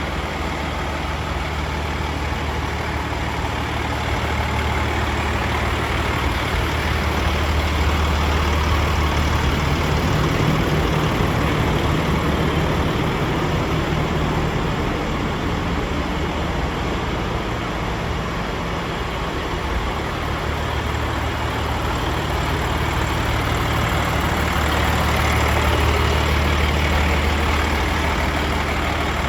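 DAF CF85's Paccar MX 460 bhp straight-six diesel idling steadily, its level swelling gently twice.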